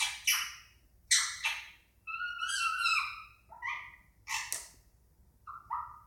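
Indian ringneck parakeet chattering: a string of short, harsh squawks and warbling calls, several with sliding pitch, about eight in all with gaps between, the last few quieter.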